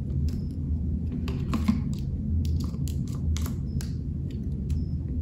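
Irregular small plastic clicks and taps from a Cirkul flavor cartridge being handled and pushed onto the plastic bottle lid, over a steady low hum.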